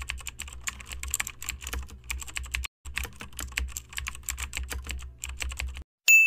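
Rapid keyboard typing clicks, a typing sound effect, with a brief pause about two and a half seconds in; the clicks stop near the end and a single high bell-like ding starts ringing.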